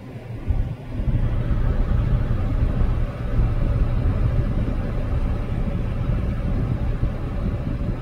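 Low, steady rumble of a car picked up from inside the cabin, growing louder about a second in.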